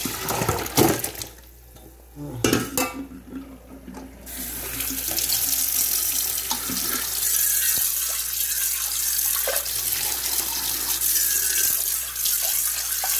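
A pot of parboiled chicken is knocked and tipped to drain its cooking water into a stainless steel sink. About four seconds in, the kitchen tap starts and runs steadily onto the chicken pieces in the sink.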